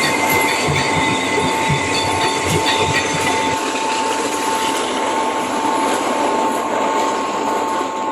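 Train running, with a steady high squealing tone over a rush of wheel noise; low knocks and a second, higher tone stop about three and a half seconds in.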